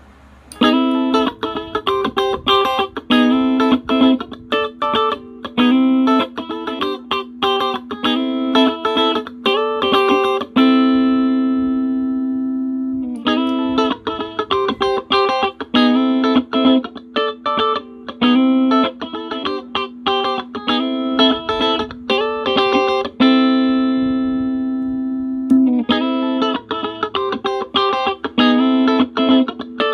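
Electric guitar played through a compressor pedal and a small practice amp: a phrase of quick picked notes that comes round about every twelve seconds, each time ending on a long held note that rings out and slowly fades.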